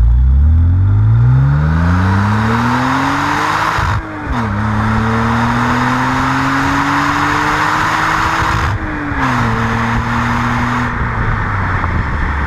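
BMW 330ci's straight-six engine and exhaust accelerating through the gears. The engine note climbs, drops at an upshift about four seconds in, climbs again, and drops at a second upshift near nine seconds before holding steady. Road and wind noise run beneath it throughout.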